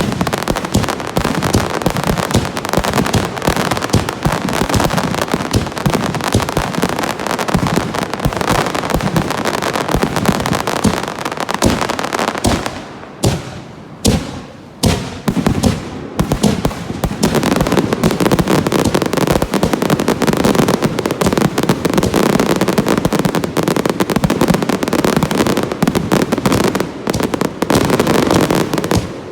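Aerial fireworks finale: a rapid, almost continuous barrage of shell bursts and crackling. It thins out briefly twice around the middle, then grows dense again.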